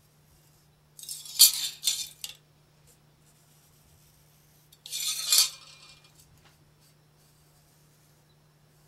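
Metal clinking and scraping in two short bursts about three seconds apart, over a faint steady hum.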